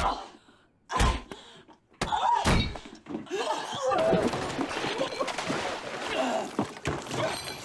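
Violent struggle between two people: heavy thuds and slams of bodies striking walls and furniture, three of them in the first two and a half seconds, then continuous scuffling mixed with strained grunts and cries.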